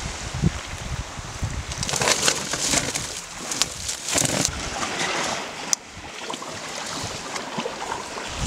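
Wind gusting over the microphone with the sea hissing on the shore, rising in surges and easing off. A sharp click comes about six seconds in, after which it is quieter.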